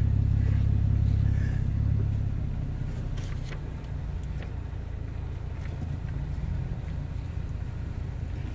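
Truck engine idling, a steady low rumble heard from inside the cab. It eases down to a lower level about two seconds in, with a few faint clicks.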